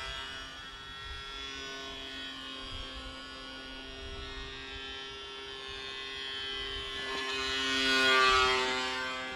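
Small electric RC plane's brushless motor (1304, 3000 kV) and 6030 propeller buzzing steadily in flight. It grows loudest about eight seconds in as the plane passes close, its pitch dipping slightly as it moves away.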